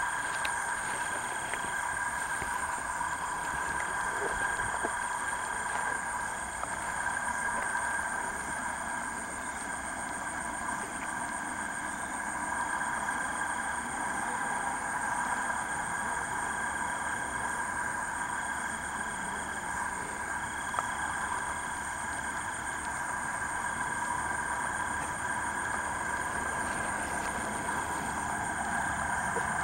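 Night chorus of calling insects and frogs: several steady high trilling tones held throughout, one of them pulsing on and off every second or two. A single brief click about two-thirds of the way in.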